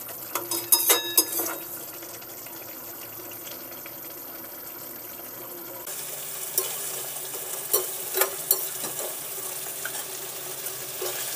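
Marinated mutton frying in mustard oil in a kadai, a steady sizzle, stirred with a metal spatula that scrapes and clinks against the pan, several clicks in the first second and a half and a few more after about six seconds in.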